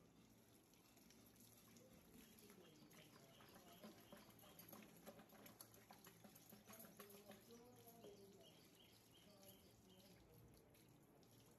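Near silence: a faint background with a few soft clicks and taps scattered through the middle.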